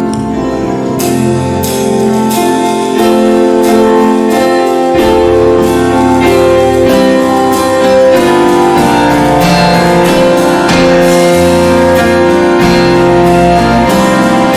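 A live church praise band plays the instrumental introduction to a hymn: sustained chords over a steady beat, with no singing yet.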